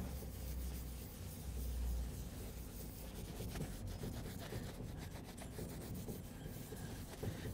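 Microfiber applicator pad scrubbing perforated leather in short, repeated strokes, a faint rubbing.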